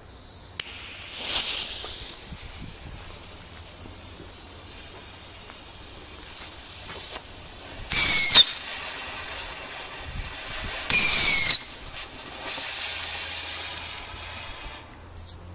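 Nico Mini Chucko firework burning with a steady hiss, letting out two loud, short whistles about eight and eleven seconds in.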